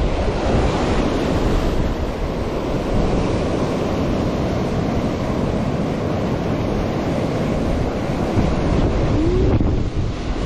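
Sea surf breaking and washing in over a rocky, stony shore, with wind buffeting the microphone.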